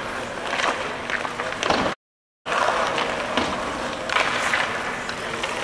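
Ice hockey practice on the rink: skates scraping and carving across the ice, with scattered short knocks. The sound drops out completely for about half a second about two seconds in.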